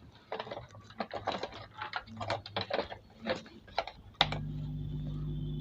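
Scattered clicks and taps of wires and parts being handled on a 4440 amplifier board, then about four seconds in a sharp click and a steady low hum starts as the amplifier is powered up.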